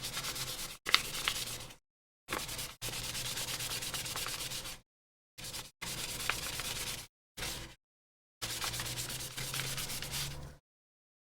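Sandpaper rubbed by hand against the plastic AirPods Pro case, in spells of rapid back-and-forth strokes that start and stop abruptly with short pauses between them.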